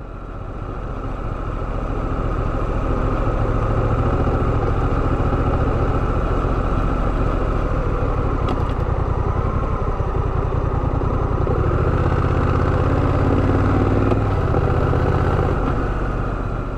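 Honda Rebel 1100's parallel-twin engine running steadily, a continuous low drone that grows fuller about twelve seconds in.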